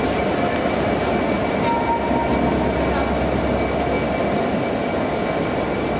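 Class 67 diesel locomotive's two-stroke V12 engine running steadily as the loco-hauled Pullman train pulls out of the station.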